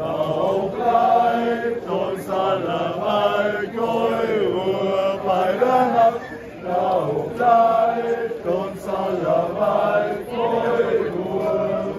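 A group of young men and women singing a folk song together in unison as a loud, chant-like group song, phrase after phrase.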